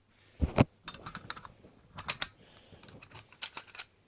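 Clicks and clatter of an airsoft pistol's slide and frame being worked together by hand against the spring, with a louder knock about half a second in.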